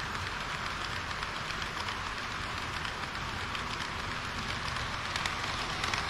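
HO-scale model train wheels rolling on sectional track, a steady rushing hiss. Clicks of the wheels over rail joints grow louder and more frequent near the end as a KiHa 40 series railcar model passes close by.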